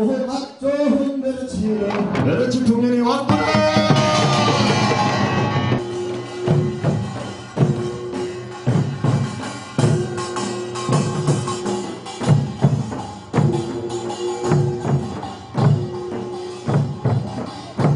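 Korean folk work-song performance: group singing for the first few seconds, then a band of barrel drums and small hand gongs beating a steady rhythm under short held notes.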